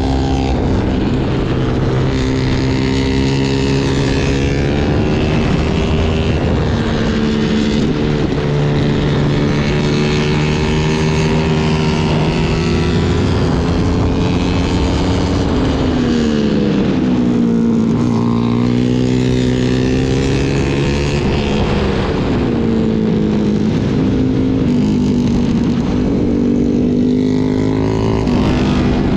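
Sport motorcycle engine heard from on board at track pace over wind rush. Its pitch climbs steadily and falls off sharply several times, about halfway and again later, as the bike slows for corners and pulls out of them.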